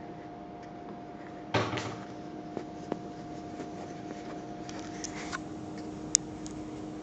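Handling noise, presumably from a kaleidoscope being held and turned: a knock with a short rattle about a second and a half in, then scattered light clicks, two of them sharp, over a steady hum.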